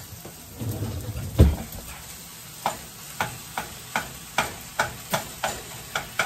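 Slotted spatula scraping and chopping at a slab of still partly frozen ground chicken in a frying pan, about two strokes a second from under three seconds in, over the steady sizzle of the meat frying. A single dull thump comes about a second and a half in.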